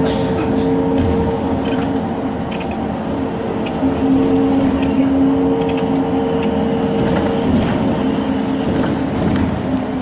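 Cabin noise inside a moving bus: steady engine and road rumble with a humming drone held on two notes, and small rattles.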